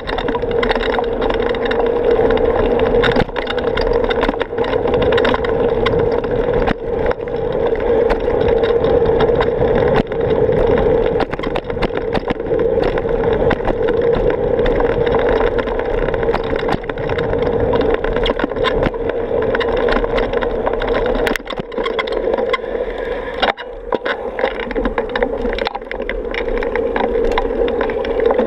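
A bicycle being ridden, with steady tyre and road noise and frequent small rattles and clicks from the bike, heard through a camera microphone in the wind.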